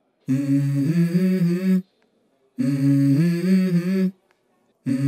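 Wordless vocal melody, hummed or sung without words, in three separate phrases of about a second and a half each, stepping between a few notes with short silences between them; it opens a pop song.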